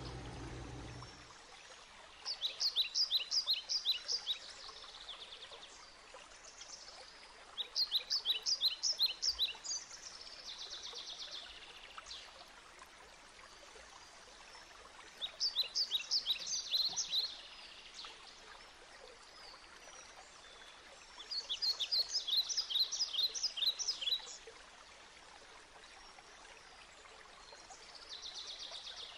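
Bird song: a phrase of rapid, high chirping notes, each phrase lasting about two seconds, repeated five times roughly every six seconds over a faint steady hiss. A low hum cuts off about a second in.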